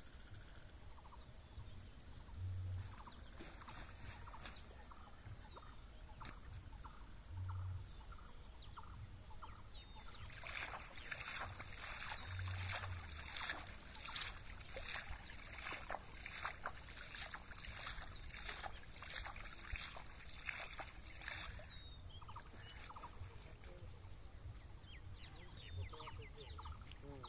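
Water splashing again and again as a cloth fishing net is swished and slapped through shallow paddy water, starting about a third of the way in and lasting around ten seconds. Before and after the splashing, faint short chirps repeat over a low rumble.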